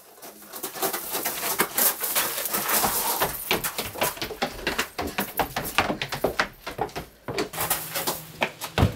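Hurried footsteps of people running on a path and on wooden stairs: a dense, irregular patter of thuds and scuffs, with a steady low hum joining near the end.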